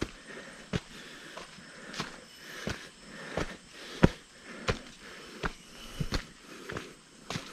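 Footsteps of a hiker walking steadily along a dry dirt forest trail strewn with dead leaves, about one step every 0.7 seconds.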